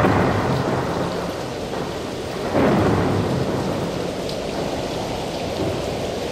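Thunderstorm sound effect: a crash of thunder breaks in at the start and a second rumble swells about two and a half seconds in, over steady heavy rain.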